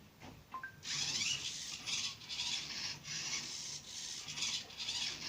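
Hobby servo motors of a 3D-printed robotic arm whirring and grinding in uneven spurts as the arm runs a dance routine, starting about a second in.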